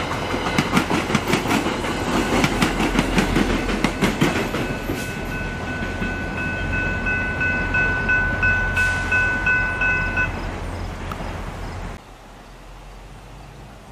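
Passenger coaches of a commuter train rolling past, their wheels clattering over the rail joints, fading out about five seconds in. A General Signals Type 3 electronic crossing bell rings a steady, rapidly repeating ding throughout and cuts off suddenly about ten seconds in, leaving only faint outdoor background.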